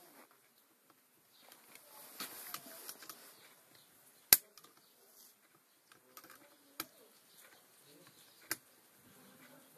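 Sharp metal clicks and handling noise from snap ring pliers working at the snap ring on a Massey Ferguson Multi-Power input shaft housing. There is one loud click about four seconds in and two lighter ones later, with soft rustling of parts and the rag in between.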